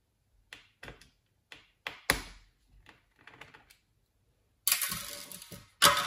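Scattered light clicks and taps of a small Phillips screwdriver and fingers on a Dell Latitude E7450's bottom cover as its screws are backed out, with one sharper click about two seconds in. Near the end, a longer scraping rub of hands handling the cover.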